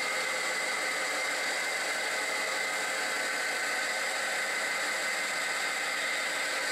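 Benchtop 9x20 CNC metal lathe cutting the face of a cast-iron backing plate with a carbide insert: a steady whir of the spindle and drive with the scratchy hiss of the tool on the cast iron, and a steady high whine over it.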